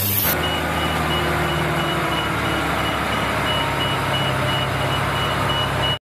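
Truck reversing alarm: a high beep repeating evenly over a steady low engine hum. It starts about half a second in and cuts off suddenly.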